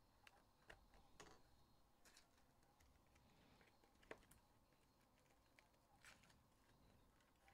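Near silence with faint scattered clicks and rustles of a cardboard trading-card box being handled and its end flap peeled open, the sharpest click about four seconds in.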